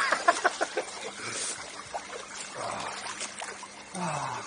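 Pool water splashing and trickling as a person moves about in it, with a quick run of splashes in the first second and softer sloshing after.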